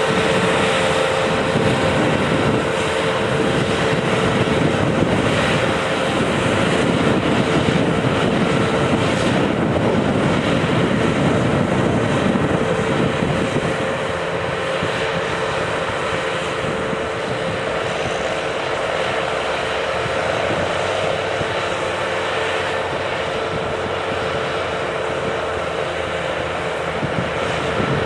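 Claas combine harvester running while harvesting: a steady engine and machinery drone with a constant whine, easing slightly about halfway through as the machine moves away.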